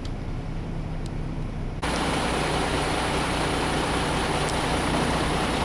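Truck engine running with road noise, a steady low rumble. About two seconds in, the sound jumps abruptly louder and fuller.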